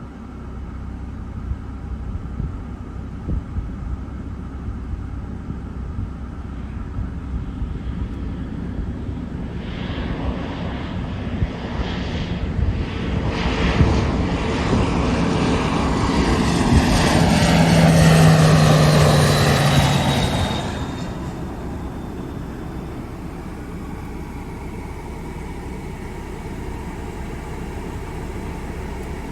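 An aircraft passing close by: its engine noise builds over several seconds, peaks loud with a steady low drone and a slowly falling whine, then drops away sharply about two-thirds of the way through as it goes past.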